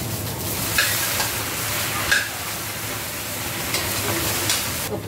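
Strips of gourd sizzling in a hot metal wok while a metal spatula stirs and scrapes them, with a few sharper scrapes of spatula on pan. The sizzle drops off suddenly near the end.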